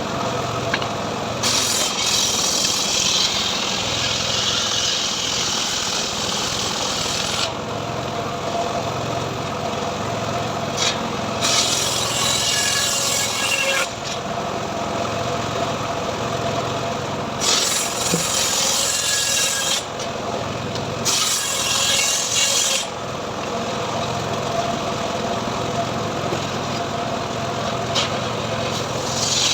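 Homemade sawmill saw cutting teak into boards over a steady running hum. The cutting noise grows harsher and brighter in several spells of a few seconds each, as the blade bites into the wood.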